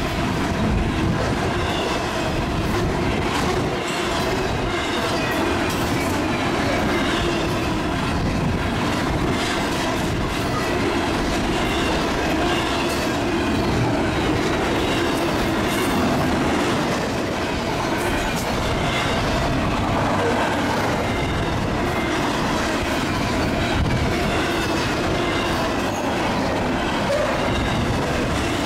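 Double-stack intermodal container cars of a freight train rolling past at speed: a steady, loud rumble of steel wheels on rail, with clicking and clatter from the wheels and faint wheel squeal.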